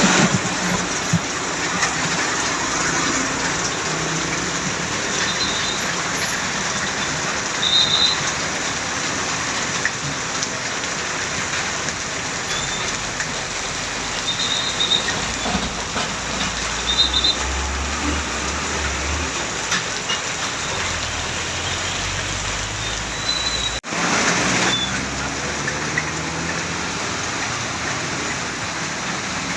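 Steady hiss of rain, with the low rumble of a heavy vehicle's engine passing in the middle. The recording cuts briefly about three-quarters of the way through.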